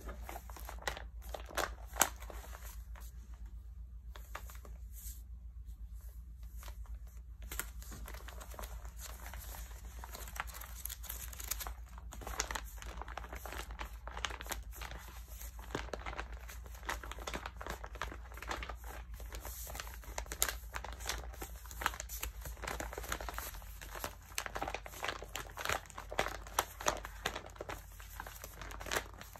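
Glossy magazine cover and pages being bent and crinkled by hand: a run of sharp paper crackles, sparse at first and denser from about a quarter of the way in, with the loudest crackles near the end. A steady low hum sits underneath.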